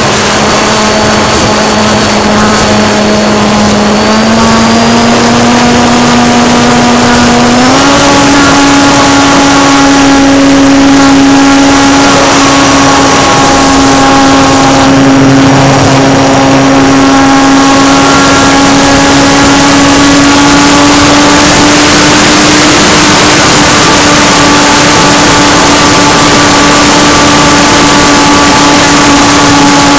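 Electric motor and propeller of a Parkzone F4U Corsair model plane whining steadily in flight, heard close-up from a camera on the plane, with a rush of airflow noise. The pitch steps up twice, about four and about eight seconds in, then holds.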